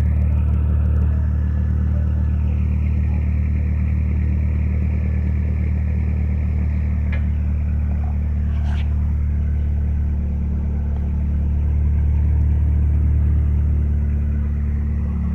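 A small engine running steadily at idle, with two light clicks partway through.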